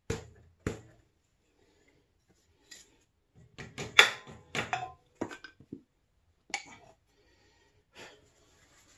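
Metal tools and parts clinking and knocking as they are handled: two sharp clanks at the start, a quick cluster of knocks in the middle, and single clanks later on.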